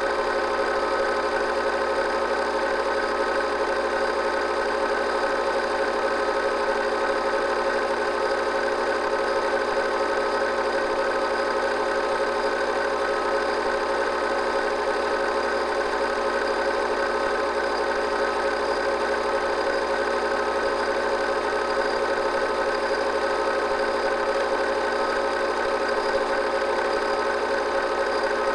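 Film projector running with a steady mechanical whir that never changes in level or pitch. It is the sound of the machine playing the silent 8mm home movie while it was being transferred.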